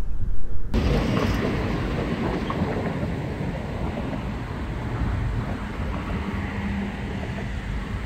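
Wind rushing over the microphone, a steady rushing noise over a low rumble, cutting in abruptly about a second in.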